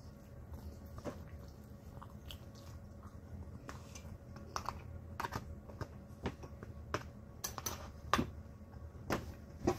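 Someone eating: irregular light clicks and taps, with chewing, getting busier and sharper in the second half.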